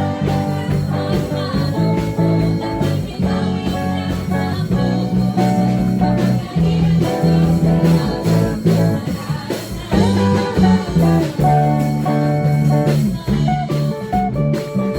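Praise and worship music.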